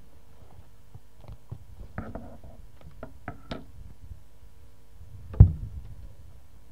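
Podium microphone being handled: a few light knocks and rustles, then one loud, sharp thump about five seconds in.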